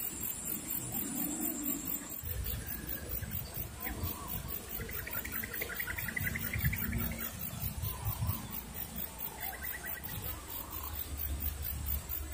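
Faint outdoor ambience of rural wetland with a low rumble. A quiet, rapid chirring trill sounds about five seconds in and lasts a couple of seconds, then comes again briefly near the ten-second mark.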